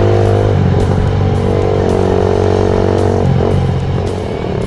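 Background music with sustained chords that change every second or so, over the running engine of a Suzuki Satria FU motorcycle on the road.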